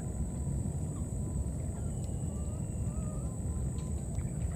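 Outdoor ambience: a steady low rumble with a steady high-pitched whine over it, and a few faint short chirping calls.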